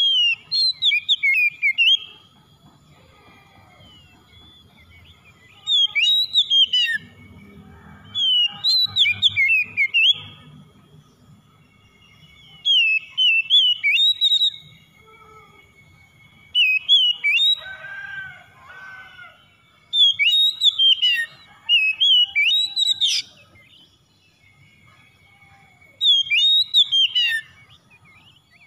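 Oriental magpie-robin singing: about seven loud bursts of quick, varied whistled phrases, each a second or two long, every few seconds.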